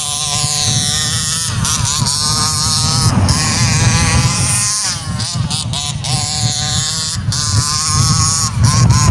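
Two-stroke petrol engine of a 1/5-scale King Motor Baja 5B RC buggy, a Rovan 30.5cc with a tuned pipe, buzzing as it revs up and down with changing throttle. Wind buffets the microphone with a low rumble.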